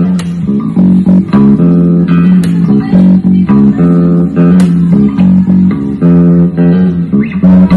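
Electric bass guitar and acoustic guitar playing a song together, in a steady rhythm of plucked notes with the bass notes loudest.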